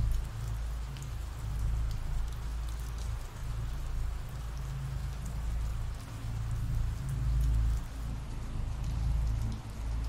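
Ambient rain sound effect: steady rainfall with scattered drop ticks over a deep, low rumble that swells and fades.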